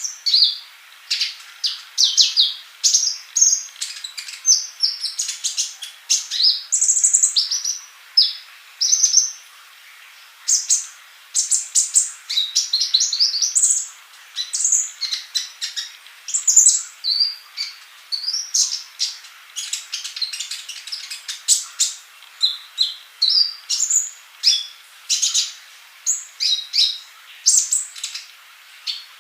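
Male kolibri ninja sunbird singing vigorously: a rapid run of high, sharp chirps and short twittering trills, broken by brief pauses.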